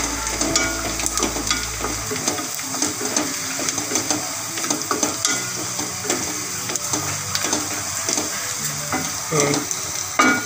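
Chopped onions, curry leaves, green chillies and roasted peanuts sizzling in hot oil in a steel kadhai, stirred with a wooden spatula. The spatula makes many short scrapes and taps against the pan, with a sharper knock near the end.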